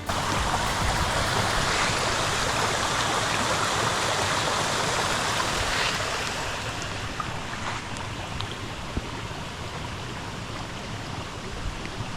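Rushing water of a spring-fed stream, a steady even noise that cuts in suddenly and eases a little about halfway through.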